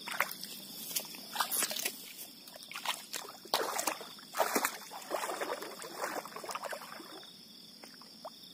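Water sloshing and splashing around a person's legs as he wades out through shallow lake water, in uneven bursts that die away about seven seconds in. A steady high-pitched whine sounds in the background throughout.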